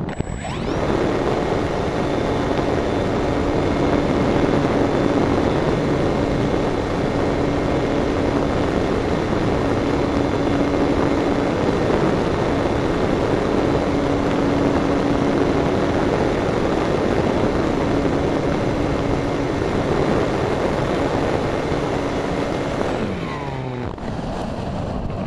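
Electric motor and propeller of an RC motor glider, heard from a camera on board: the motor comes on about half a second in, runs steadily at full power with a steady whine through the climb, then is cut near the end and spins down with a falling whine, leaving only airflow noise.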